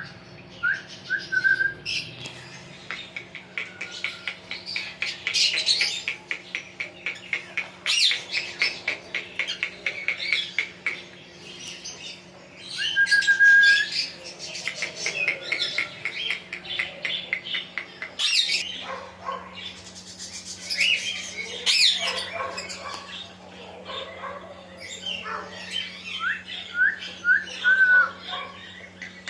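Pet parrot chattering and squawking in rapid runs, with short rising whistles near the start and the end and one held whistle about thirteen seconds in.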